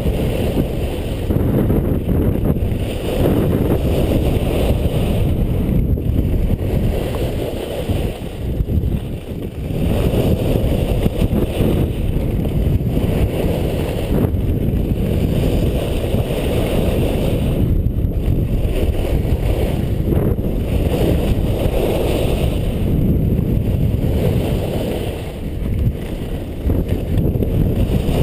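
Wind rushing over a helmet-mounted camera's microphone as a skier descends at speed, with the hiss of skis on packed snow swelling about every two seconds as the skier turns.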